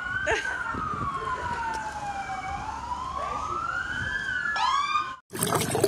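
Police car siren wailing, a slow tone falling and then rising again, switching to quick yelps near the end.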